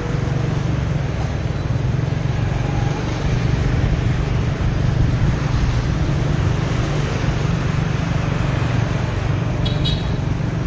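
Steady street and riding noise from a camera moving along a busy road among motor scooters: a low rumble of wind and engines, with two short high horn beeps near the end.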